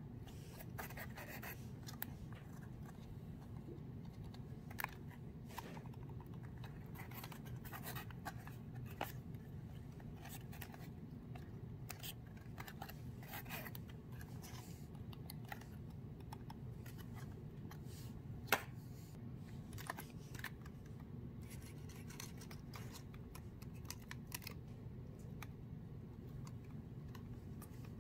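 Light scratching and scattered small clicks as a 3D puzzle model of a train carriage is handled and turned over in the hands. A steady low hum sits underneath, and the sharpest click comes about two-thirds of the way through.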